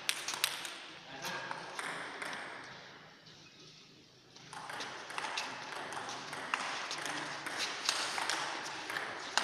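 Table tennis ball clicking back and forth off the paddles and the table in a rally. The clicks stop for about a second and a half in the middle, then start again as the next point is played.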